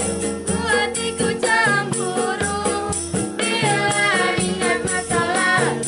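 Several young voices sing a pop song together, starting about half a second in, over ukulele strumming and a steady beat from a jingling tambourine and a hand drum made of plastic containers.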